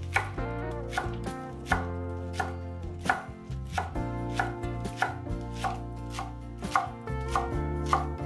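Knife cutting food on a cutting board in steady, even strokes, about one and a half a second, over background music.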